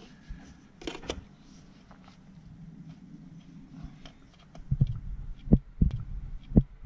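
Light clicks, then about two-thirds of the way in a run of dull knocks, as a hand and tools work the bolts of a new water pump in a VW TDI engine bay.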